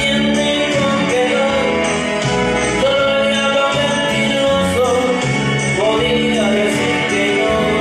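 A song with recorded instrumental backing and a steady bass line, with a man singing along into a microphone.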